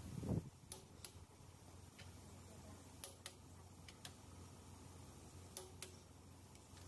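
Socket wrench clicking as it is worked on the cylinder head bolts of a Toyota 1DZ diesel engine: about eight sharp clicks at irregular intervals, several in quick pairs, over a steady low hum. A low thump comes right at the start.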